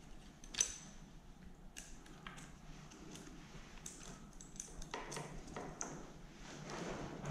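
Small metallic clicks and clinks of a chainsaw's saw chain and bar being handled by hand, with one sharp ringing click about half a second in.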